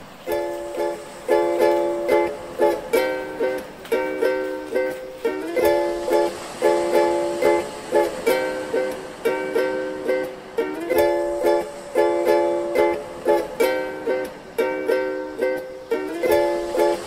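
Background music: strummed chords repeating in a steady, even rhythm.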